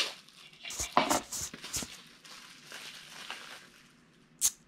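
Clear plastic bag crinkling and rustling as a small vinyl figure is handled and unwrapped, with a sharp click near the end.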